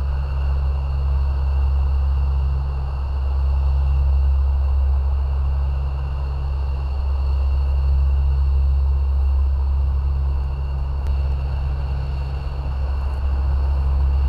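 Military aircraft engines running: a steady, loud low rumble with a faint, steady high-pitched turbine whine above it.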